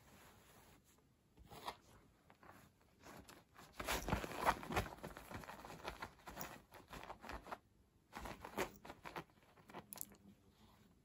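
Scratching and rustling of a cloth floor cushion as a cat grabs, bites and kicks at it on tatami, in uneven bursts. The busiest, loudest scrabbling comes about four seconds in, followed by scattered scrapes and light clicks.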